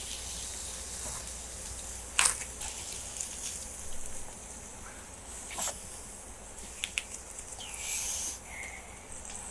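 Close-up eating sounds of someone chewing grilled Korean barbecue meat: a few sharp mouth clicks spread a few seconds apart, and a brief hiss about eight seconds in.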